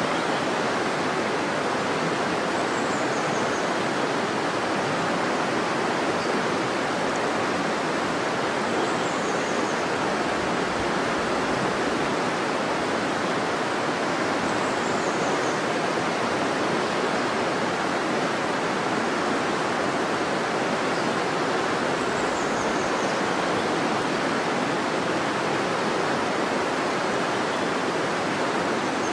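River water rushing steadily over rocks, an even, unbroken noise.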